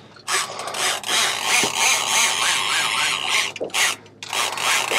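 Fishing reel's ratchet clicker buzzing as a fish pulls line off on a run after taking the bait. It is a continuous rasping buzz that stops briefly near the end and then starts again.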